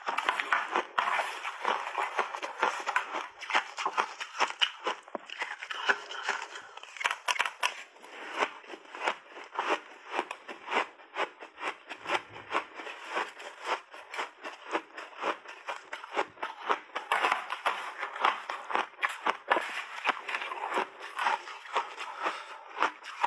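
Crushed, refrozen mixed-berry ice being crunched in big mouthfuls: a dense, irregular run of sharp crackling crunches, with a metal spoon scraping in a glass dish.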